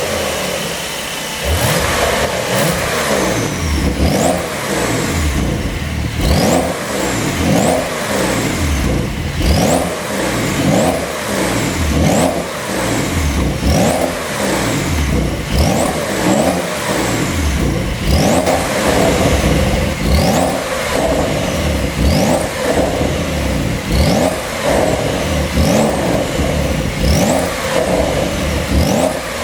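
2020 Porsche 911 Carrera 4's twin-turbo flat-six revved again and again, about once every two seconds, with pops and crackles from the exhaust as each rev falls away: the sound of a pop-and-crackle tune.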